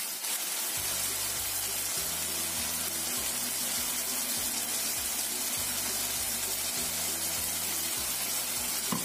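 Chicken and sausage sizzling and bubbling in a frying pan with a little water. Background music with a steady bass line comes in about a second in.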